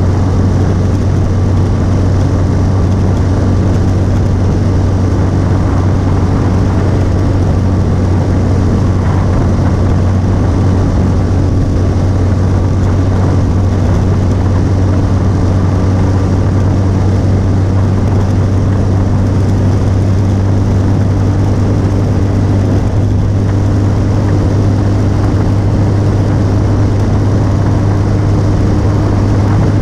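Motorcycle engine running steadily at cruising speed, a constant low hum under the rush of wind from riding along.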